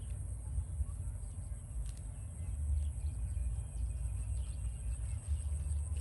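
Outdoor ambience dominated by a low, unsteady rumble of wind on the microphone, with a faint steady high hiss above it and a few soft rustles of lettuce leaves being handled.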